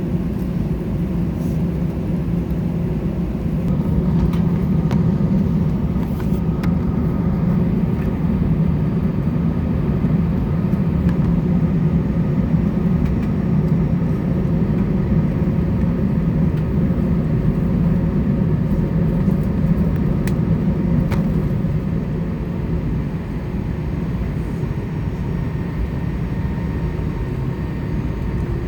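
Steady low rumble and hum of an Airbus A320's engines and air systems heard from inside the passenger cabin, running at low taxi power while the jet taxis.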